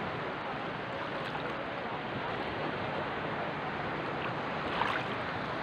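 Calm sea water lapping and washing close to the microphone, a steady even hiss with no big waves breaking.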